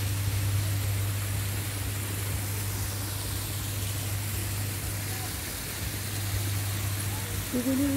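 Steady hiss of outdoor background noise with a constant low hum beneath it.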